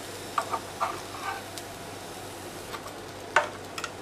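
A few light taps and clicks as a grilled sandwich is lifted out of an electric sandwich griller and set down on a plastic chopping board, the sharpest click about three and a half seconds in, over a faint steady hiss.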